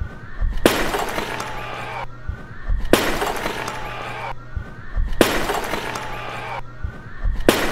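Clay jar smashed on a stage floor, repeated four times about two seconds apart. Each is a sharp crash followed by about a second of shards clattering and fading.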